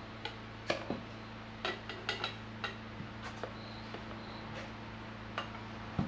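Irregular metallic clicks and clinks of steel tire spoons working a motorcycle tire's bead against the wheel rim, mostly in the first half and once more near the end, over a steady low hum.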